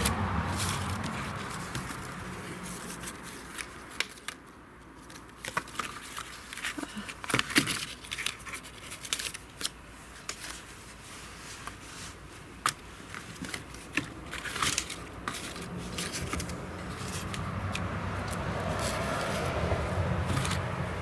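Irregular light clicks, scrapes and crinkling, with a low rumble at the start that fades within about two seconds and returns near the end.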